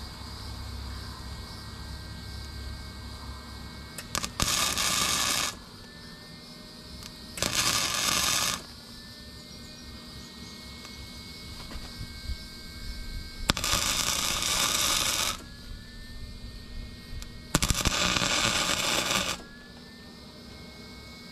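Wire-feed welder laying four short tack welds, each a crackling hiss of about one to two seconds, with pauses between them.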